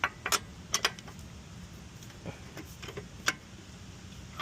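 Sharp metallic clicks and clinks of wheel nuts being handled and fitted loosely onto the wheel studs by hand, several close together in the first second and another about three seconds in.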